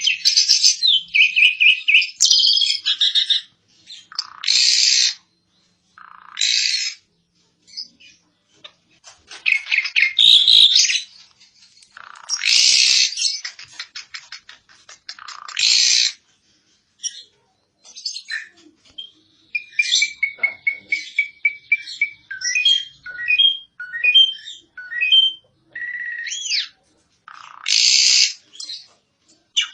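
Asian pied starling (jalak suren) singing: loud harsh, rasping bursts alternate with chattering and whistled notes, with a run of short repeated whistles in the second half.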